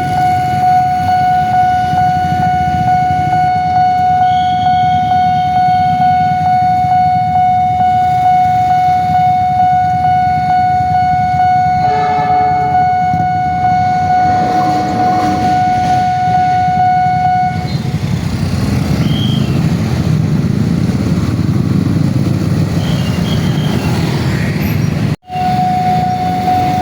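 Railway level-crossing alarm sounding one steady high tone over the continuous heavy rumble of a passing train, with a brief train horn blast about halfway through. The alarm tone stops about two-thirds of the way in while the train rumble carries on. After a sudden break near the end, the alarm tone is heard again.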